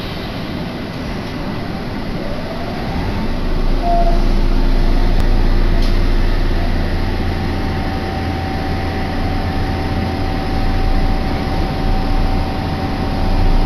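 Inside a Kobe Kaigan Line linear-motor subway car as it pulls out and picks up speed. The motor whine rises and the running noise grows louder a few seconds in. It then settles into a steady rumble with a held whine in the tunnel.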